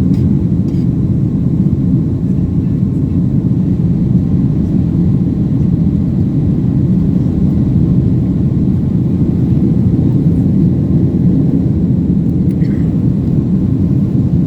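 Boeing 757 jet engines and airflow during the climb after takeoff: a steady low rumble at an even level throughout.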